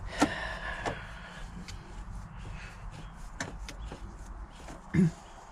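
Scattered sharp clicks and clinks of metal parts and bolts being handled while a hydraulic pilot joystick valve is reassembled; the loudest clink, near the start, rings briefly. A short grunt-like voice sound comes about five seconds in.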